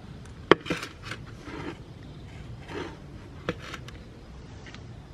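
Two sharp clicks, one about half a second in and one about three and a half seconds in, with several short scraping noises between them.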